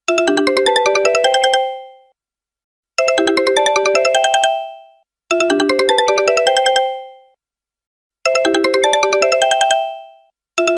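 Mobile phone ringtone: a short, quick run of bright electronic notes, rising overall, repeated about every two to three seconds with brief silences in between.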